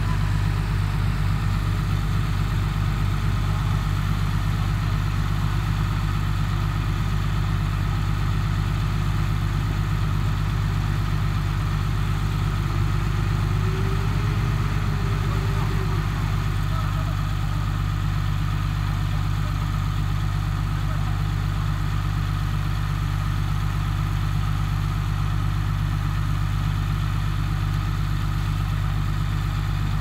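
Heavy construction machine's diesel engine running steadily, a deep even engine note that hardly changes.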